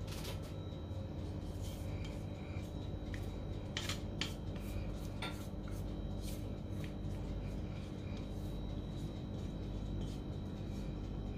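Stainless mixing bowl and silicone spatula knocking and scraping as cake batter is scraped out into round aluminium cake pans: several short sharp clicks and scrapes, a few in quick succession. A steady low hum runs underneath.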